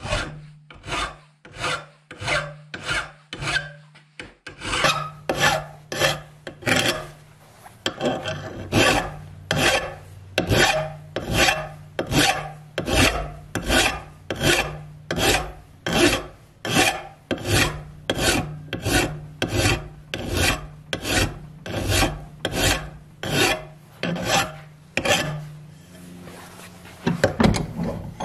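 An 8-inch cross-cut hand file rasping along the edge of a steel lawn mower blade clamped in a vise, in even strokes about two a second, sharpening a dull, nicked blade. The strokes stop near the end, followed by a couple of louder knocks.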